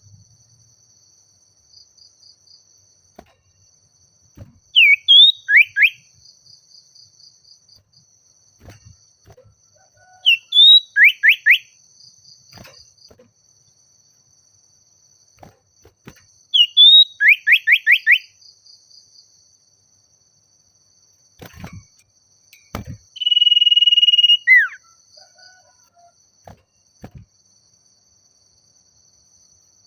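Common iora (sirtu/cipoh) singing. It gives three phrases, each a short up-slurred note followed by a quick run of falling whistles, the last run the longest, then a steady whistled note held about a second that ends in a downward slide. A faint steady high-pitched hum runs underneath.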